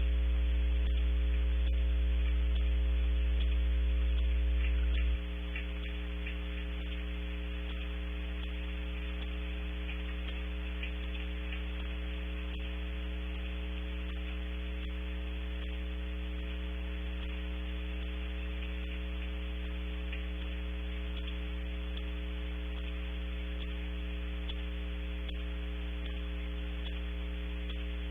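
Steady electrical mains hum and buzz with hiss on a webcam's audio feed: a fault in the camera's sound rather than an animal. The deep part of the hum drops in level about five seconds in, and the buzz carries on steadily.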